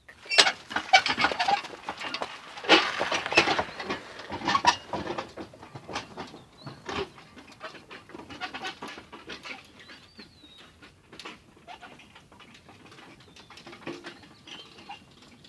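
Mule-drawn tipping cart moving over dry, stubbly ground with the mule's hoofs: a run of loud rattles and knocks in the first five seconds, thinning to softer scattered ones.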